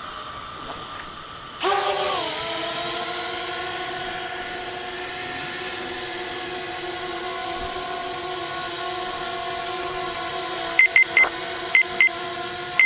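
Hubsan H502S Desire mini quadcopter's motors spinning up about a second and a half in: a steady whine that dips briefly in pitch, then holds. Near the end come a handful of short electronic beeps.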